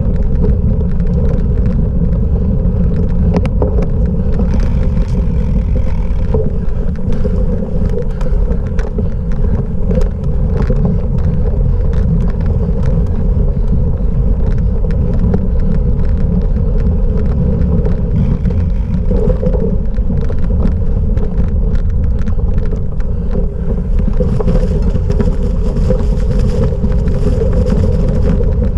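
Cyclocross bike ridden over rough off-road ground: a loud, steady rumble of wind on the microphone and tyres, with many small knocks and rattles from the bike.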